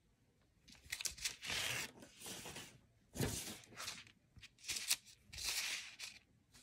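Paper target sheets being handled and swapped: several rustling, crinkling sweeps of paper, with a soft knock about three seconds in.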